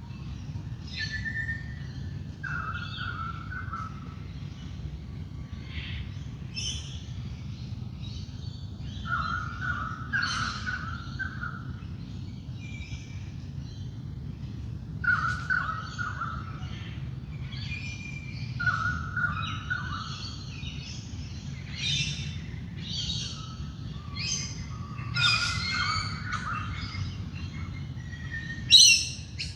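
Dawn chorus of wild birds: several birds calling and singing at once in short, overlapping phrases, with a few louder calls near the end, over a steady low hum.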